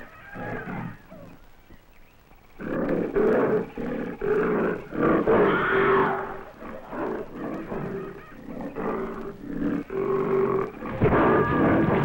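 A tiger growling and roaring in repeated rough bursts, starting about two and a half seconds in and getting louder near the end.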